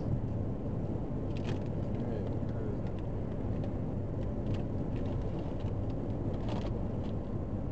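Steady road and engine noise of a moving car, heard from inside the cabin, with a few faint clicks.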